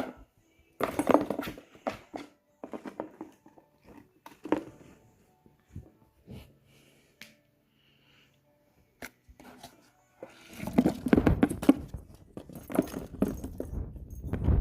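A cat scrabbling and scratching at a cardboard box: scattered scrapes and knocks, then from about ten seconds in, rapid, continuous scratching.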